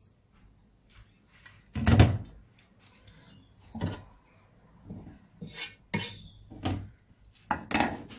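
A loud clatter about two seconds in as the glass pan lid is set down. Then a wooden spatula knocks and scrapes in several separate strokes, stirring chunks of vegetables in a deep coated pan.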